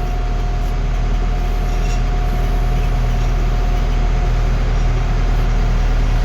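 Heavy vehicle's diesel engine running steadily: a low drone with a steady whine above it, growing slightly louder.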